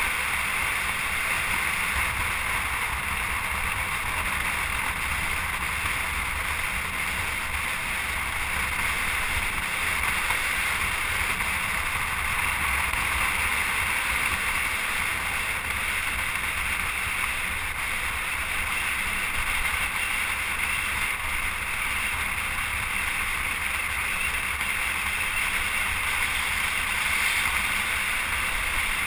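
Steady rushing wind noise over a low rumble, unbroken and even in level.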